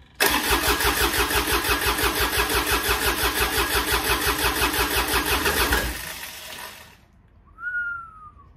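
Freshly rebuilt Yanmar 3TNA72UJ three-cylinder diesel in a John Deere 755 compact tractor, cranked on the starter with no glow plugs and catching on its first start, running with an even pulsing beat for about five and a half seconds before it stops and dies away. The exhaust is not fully fitted. Near the end comes a short falling whistle.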